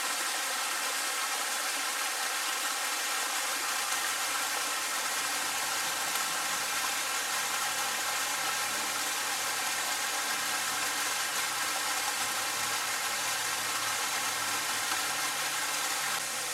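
Steady, even rush of running stream water.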